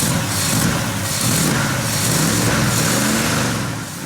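A motor vehicle's engine running under a steady wash of road and wind noise, its low pitch wavering up and down.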